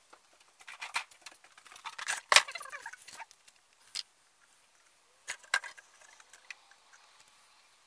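Tools and parts being handled on a wooden workbench: scattered clicks and knocks, the loudest about two and a half seconds in, with fewer, fainter clicks in the second half.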